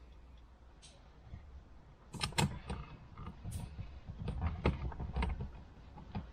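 Irregular clicks and knocks of a screwdriver and hard plastic trim as the screws holding the wireless charging pad's retaining plate in the console are tightened, over a low steady hum.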